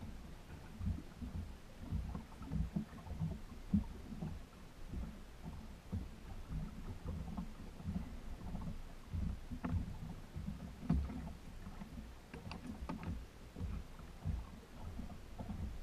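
Water slapping against the hull of a small boat: uneven low thumps throughout, with a few faint clicks in the second half.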